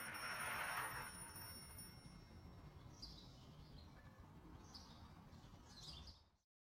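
Faint birds chirping, three short high calls in the second half, over a low steady background hum. Everything cuts to silence near the end.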